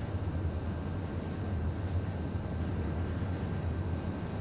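Steady low rumble of a Seikan ferry's engines, heard on the ship's bridge.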